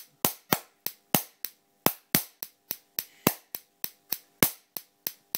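Repeated sharp snapping cracks of high-voltage capacitor discharges across a spark-plug spark gap in a homemade discharger fed by a 6 kV transformer. The cracks come about three to four a second, unevenly spaced and of uneven strength, over a faint steady hum.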